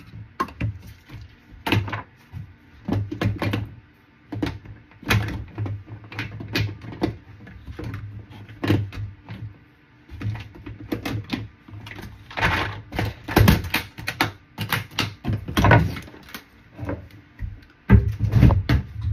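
Irregular clicks, clacks and knocks of small objects being handled and set down close to the microphone, about one or two a second, with dull thuds underneath.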